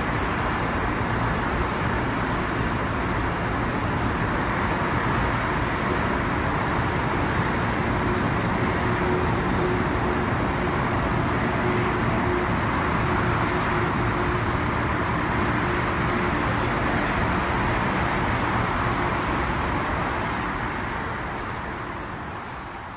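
Amtrak Northeast Regional passenger cars rolling past a station platform, with the steady noise of steel wheels running on the rails. The sound fades away over the last few seconds.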